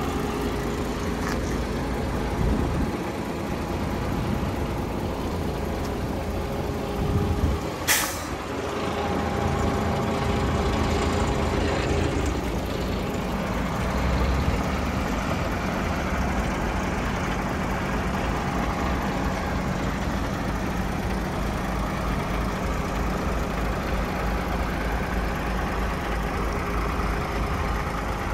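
PACCAR 460 hp Euro 6 diesel engine of a DAF XF tractor unit idling steadily, with one short, sharp hiss of compressed air from the truck's air system about eight seconds in.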